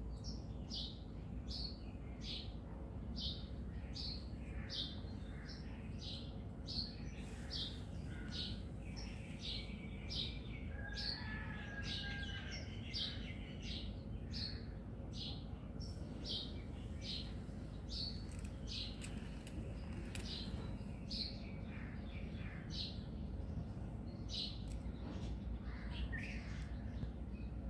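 A bird chirping repeatedly: short, high, falling chirps at about two a second, with another bird's brief call about eleven seconds in, over a steady low rumble.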